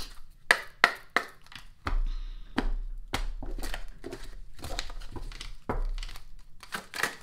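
A deck of tarot cards being shuffled by hand: a run of short, irregular card slaps and snaps.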